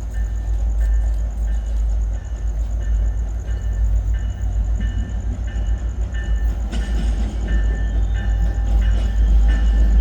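Tri-Rail train's diesel locomotive idling with a steady low rumble, while a bell rings about twice a second. The rumble grows louder in the second half.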